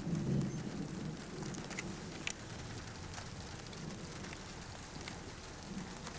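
Rain falling in a steady hiss, with a few sharp drop clicks, the clearest about two seconds in.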